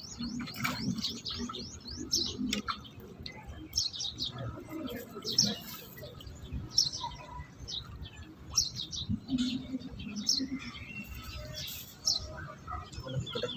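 Small birds chirping steadily, many short, quick high chirps overlapping, with a few sharp knocks standing out about five and a half and seven seconds in.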